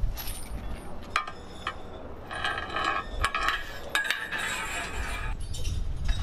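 Metal cleaning rod and bore brush being worked through an M1 Abrams tank's 120 mm smoothbore gun barrel to scrub out carbon: a few sharp metallic clicks, then stretches of high-pitched metallic squeaking and scraping.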